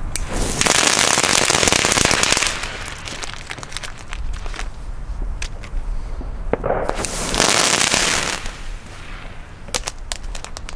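Big Whopper fireworks going off: two loud hissing blasts, the first about two seconds long and the second about a second, with scattered crackling pops around them.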